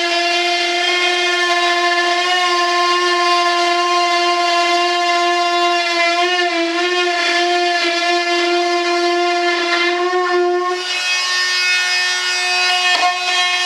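High-speed rotary tool whining steadily as it trims the cured fiberglass-and-resin mold. The pitch wavers around the middle and drops slightly a few seconds before the end as the cut loads the tool.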